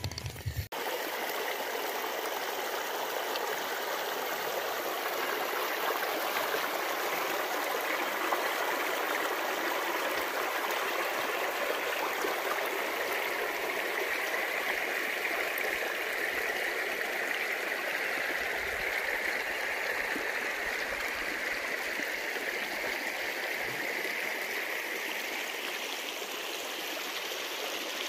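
Shallow stream rushing and babbling over rocks and stones in a steady, even wash of water noise.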